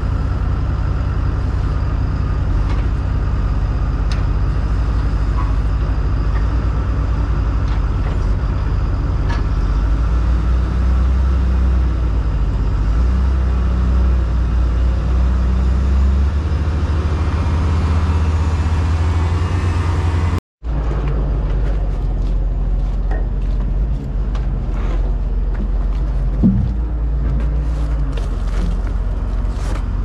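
Heavy vehicle engine running steadily with a low rumble that swells for a few seconds in the middle; it drops out for an instant about twenty seconds in and carries on.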